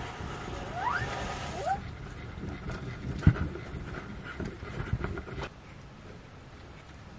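Parmesan being grated on a flat stainless steel hand grater, the rasp of the strokes over a low rumble that drops away about five and a half seconds in. A couple of short rising chirps come near the start, and a single sharp knock about three seconds in is the loudest sound.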